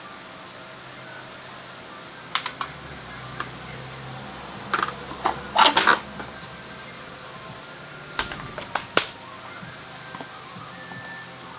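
Scattered sharp clicks and metallic knocks of tools and parts being handled during work on a scooter wheel, in small clusters over a faint steady hum.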